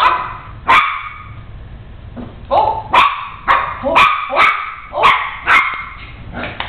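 Small puppy barking in play: about ten short, high-pitched barks, two near the start, then a quick run of about two a second in the middle.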